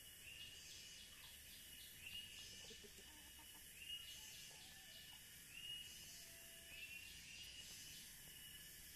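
Faint outdoor ambience: a high chirp repeating about every second and a half over a steady hiss.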